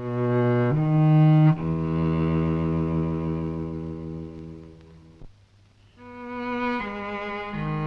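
Solo cello played with the bow: a few sustained notes, then one long low note held for about three seconds and dying away. After about a second of near silence, the bowing starts again with new notes.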